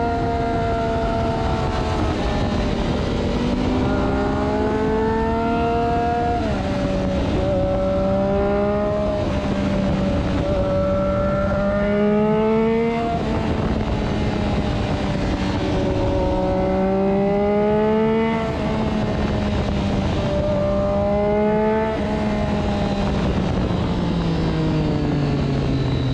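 Triumph Daytona 675R's inline three-cylinder engine heard from on board at low road speed, its pitch climbing slowly under light throttle and dropping back abruptly about four times, then falling away near the end as the bike slows. Steady wind rush runs underneath.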